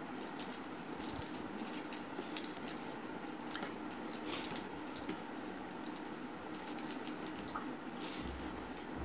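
A bare hand mixing and mashing rice on a steel plate: soft wet squishing with scattered light clicks of fingers against the plate.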